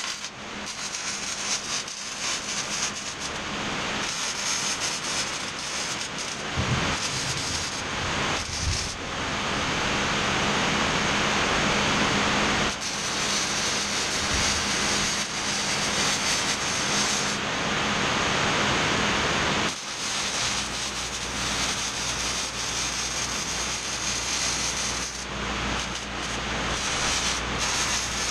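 Electric arc welding on a steel mower deck: the steady crackle of the welding arc in long runs, broken by brief pauses. A low steady hum comes in about two-thirds of the way through.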